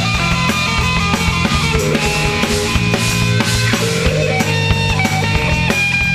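Live blues-rock band playing an instrumental passage: electric guitar lead lines held over bass guitar and drum kit, recorded straight from the mixing desk.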